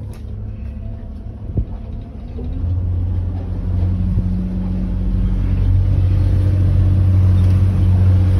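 Boat engine running low, with a single knock about a second and a half in. The engine then speeds up, rising in pitch and growing louder, and runs steady as it is put back in gear and the boat gets under way.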